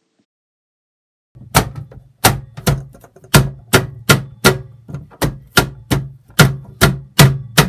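Kitchen knife chopping carrots on a plastic cutting board: a steady run of sharp chops, about two or three a second, starting a little over a second in.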